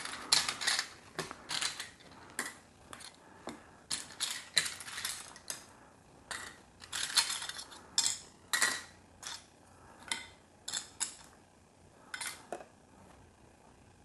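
Loose plastic LEGO pieces clicking and clattering against each other as hands sort through a pile, in quick irregular runs that stop shortly before the end.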